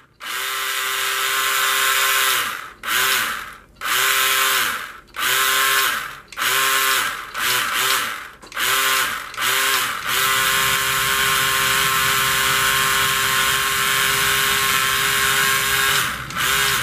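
Electric motor and gears of a Carrera Digital 1/32 Ford Capri RS 3100 slot car whining as the car is held down on the track, revved up and cut off in bursts of one to two seconds, then held at a steady whine for about six seconds before more short bursts near the end.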